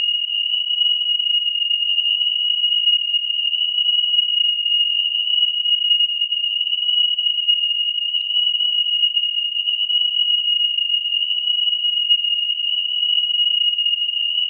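Electronic alarm sounding one continuous, high-pitched tone that holds the same pitch throughout, without rising or falling like a wailing siren.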